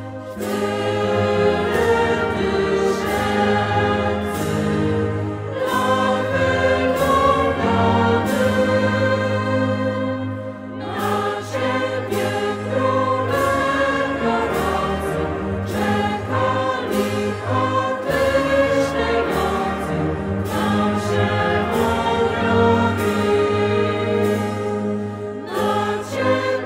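Mixed choir singing a Polish Christmas carol (kolęda), accompanied by a wind band of saxophones and brass. The sung phrases break off briefly every few seconds.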